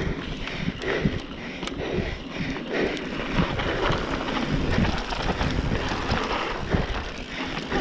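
Wind buffeting the microphone and tyres rolling over a dry dirt trail as a mountain bike is ridden fast, with frequent short knocks and rattles from the bike over bumps.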